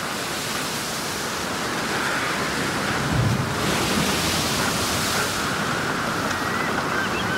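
Rough sea surf and wind: a steady rushing noise that builds slightly in loudness.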